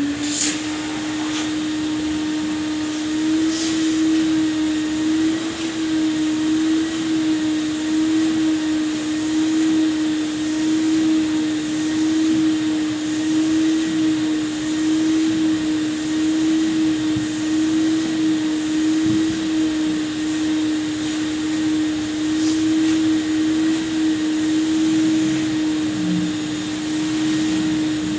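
Vacuum cleaner running steadily while it vacuums upholstered sofa chairs: a constant motor hum under a broad rushing hiss of suction, the level wavering a little as the nozzle moves over the fabric, with a couple of light clicks in the first few seconds.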